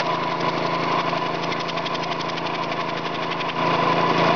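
Small Briggs & Stratton lawnmower engine running steadily with a fast, even beat. The level rises a little about three and a half seconds in.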